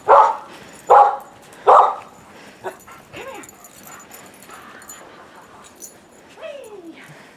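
Dogs barking: three sharp barks in the first two seconds, then quieter whining with falling pitch, twice.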